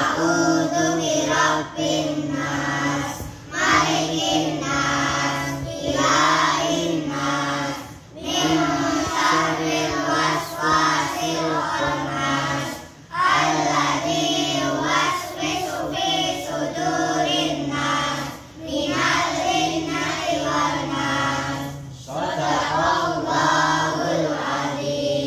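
A group of children chanting together in unison, phrase after phrase with short breaks for breath between.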